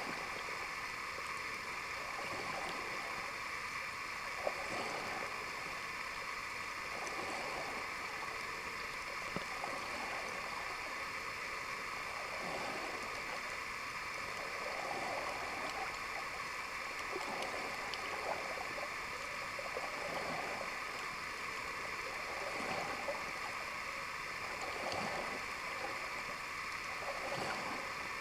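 Underwater sound picked up by a camera filming below the surface: a steady hiss with rushing swells of water every two to three seconds and a few faint clicks.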